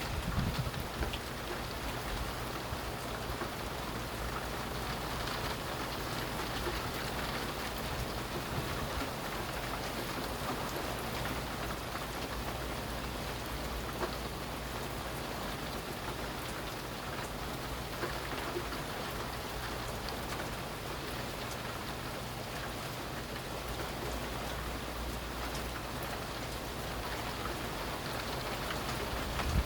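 Steady rain falling in a rainstorm: an even hiss of raindrops striking surfaces, with a brief louder patch about a second in.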